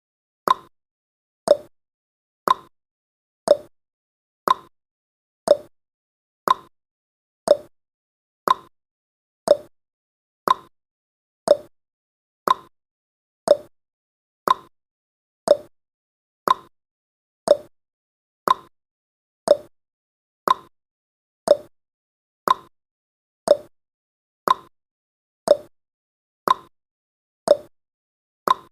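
Countdown timer's clock-tick sound effect: a short, sharp tick once a second, each dying away quickly, steady and even throughout.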